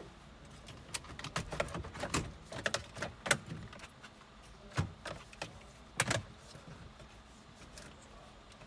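Light clicking and clattering of hand tools and plastic parts being handled, a quick run of them over the first few seconds, then two sharper single knocks about five and six seconds in.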